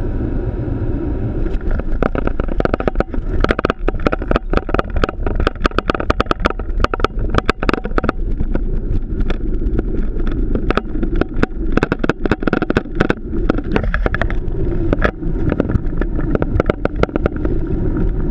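Boeing 737 touching down and rolling out on the runway, heard from the cockpit. A steady rumble of engine and airflow noise runs throughout. From about a second and a half in, a dense, irregular rattle of knocks and clicks from the landing gear and airframe on the runway joins it, thinning out near the end.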